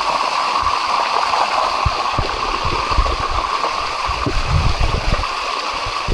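Water of the Sticky Waterfall rushing and gurgling steadily over its limestone rocks, with irregular low rumbling bumps underneath.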